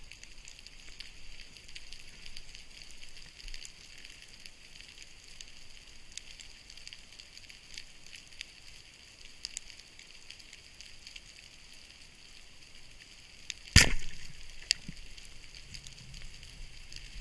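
Continuous underwater crackle of many small clicks, with one sharp, loud knock about fourteen seconds in.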